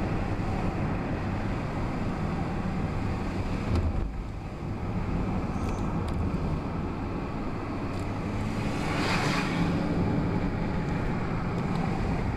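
Car driving on a winding road, heard from inside the cabin: a steady rumble of engine and tyre noise, with a brief rushing swell about nine seconds in.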